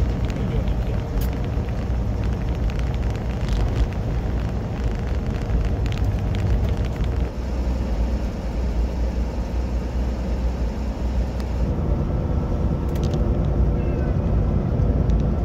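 Steady low rumble of a semi-truck's engine and road noise heard inside the cab. About twelve seconds in, the high hiss drops away and a faint steady whine remains.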